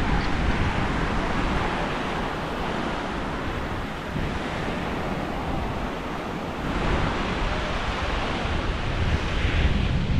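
Sea surf washing on the shore, with wind buffeting the microphone in a low rumble; the surf swells up again about seven seconds in.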